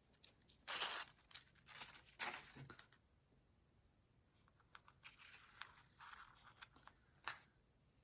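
Adhesive tape peeled off a small plastic glaze container, in two tearing rips within the first three seconds, followed by lighter rustling and a single sharp click near the end.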